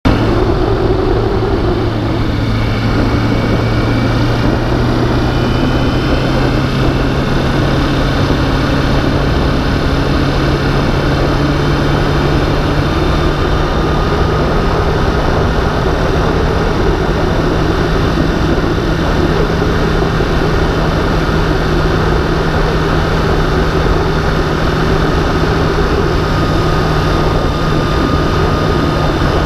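Sport-bike inline-four engine at a steady cruise, a constant low drone with wind rushing past. The drone steps up slightly in pitch about two seconds in, then holds.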